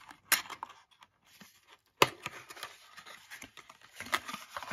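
Cardboard knife box being opened by hand: a sudden tearing sound near the start and a louder one about two seconds in, then paper and cardboard rustling as the flaps are folded open.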